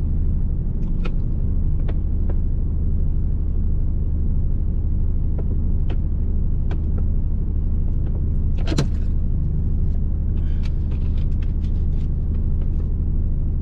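Steady low rumble inside a parked truck's cab, with scattered light clicks and rustles from plastic shopping bags being unpacked, and one louder clatter about nine seconds in.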